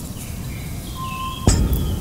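Eerie background music over a low rumble, with a sudden deep boom about one and a half seconds in.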